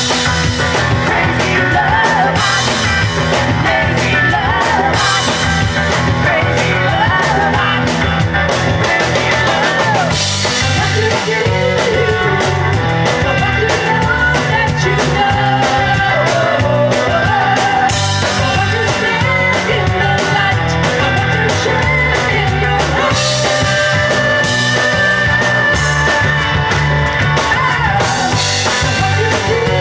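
Live rock band playing: women singing over electric bass, electric guitar and two drummers' kits, with a steady driving beat and cymbals throughout.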